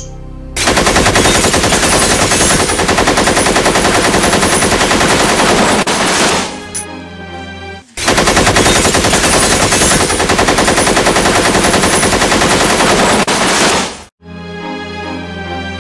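Machine-gun fire sound effect: two long unbroken bursts of rapid shots, the first about six seconds and the second about five, with a short break between them.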